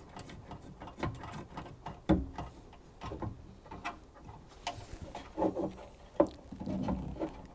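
Hands working cables and connectors at a CB radio unit: scattered small clicks and knocks of plastic and metal with cable rustle, the sharpest knocks about 2 s and 6 s in.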